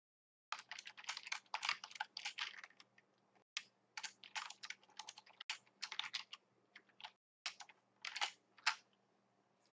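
Computer keyboard typing in quick runs of keystrokes separated by short pauses.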